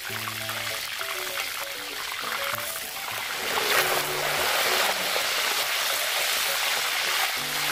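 Hot oil sizzling and bubbling around a whole chicken deep-frying in a large wok, with oil scooped up on a metal spatula and poured back over the bird so it trickles and splatters into the pan; the frying hiss grows louder about three seconds in. Background music plays along.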